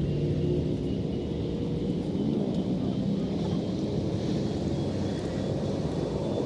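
An engine running steadily with a low rumble, plus a faint high whine.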